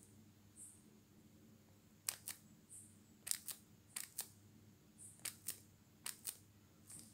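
Front-panel push buttons on a Teampie TPM006c digital audio player clicking as the folder menu is stepped through: five presses about a second apart starting about two seconds in, each a pair of quick clicks. A faint steady low hum runs underneath.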